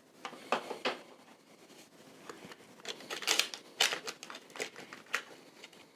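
Hands handling small gadgets from a pocket tin: soft crinkling and rustling with light clicks and taps, busiest about three to four seconds in.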